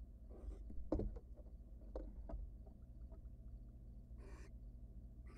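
Knocks and scuffs on a wooden nest box as a barn owl leaps out with its prey: a sharp knock about a second in is the loudest, with two more near two seconds and lighter ticks after. A couple of short hissing bursts follow near the end.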